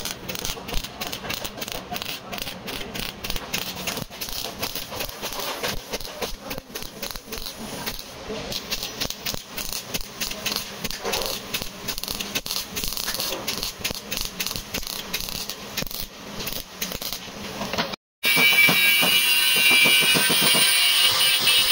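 Car body repair work: a fast, irregular run of metallic clicks and rattles. After an abrupt cut about eighteen seconds in, a power or air tool starts up with a loud, steady, high-pitched hiss.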